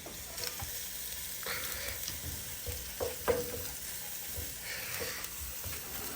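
Chopped garlic and diced meat sizzling in a frying pan in the meat's own fat. They are stirred with a utensil that scrapes and taps the pan about once a second.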